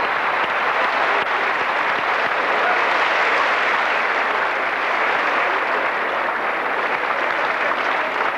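Large arena crowd applauding: a dense, steady clapping.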